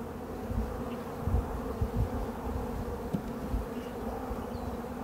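Honeybees buzzing from an open hive full of frames, a steady hum with a few dull low bumps.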